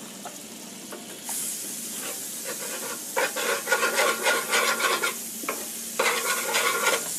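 Margarine sizzling on a hot flat griddle pan while a wooden spatula spreads it, scraping across the pan's surface in two spells of strokes. The sizzle starts about a second in.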